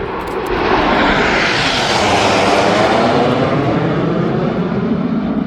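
RAF Red Arrows BAE Hawk T1 jets flying past, a loud jet roar with a sweeping rush that swells to its peak about two seconds in and stays strong.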